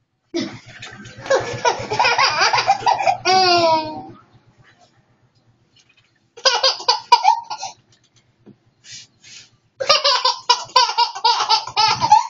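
A toddler laughing in several bouts with short pauses between them, high-pitched and wavering.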